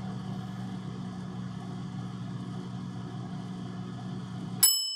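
A steady machine hum that cuts off abruptly near the end, followed at once by a single ringing ding that dies away.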